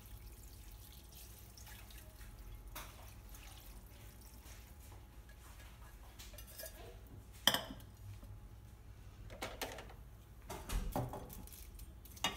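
Water from a small saucepan trickling into a glass bowl of dry harusame glass noodles, then the pan set down on the stone counter with a clunk about seven and a half seconds in, the loudest sound. Near the end a utensil clinks against the glass bowl several times as the soaking noodles are stirred.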